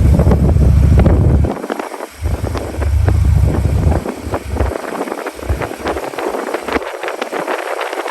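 Strong wind buffeting the microphone in gusts. The low rumble cuts out about a second and a half in, comes back briefly, then turns patchy, with rapid crackling throughout.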